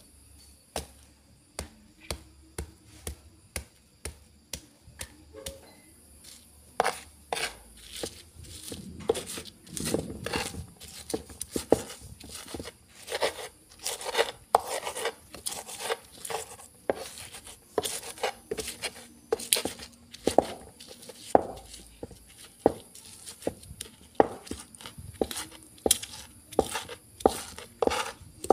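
Stone pestle pounding and grinding chillies, garlic and shallots in a flat cobek mortar to make a spice paste. It gives a steady train of sharp knocks, about one and a half to two a second, with a short stretch of rough grinding about a third of the way in.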